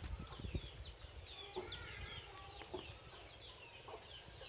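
Birds chirping in a quick, overlapping chatter of short, high, falling calls, over a faint low rumble.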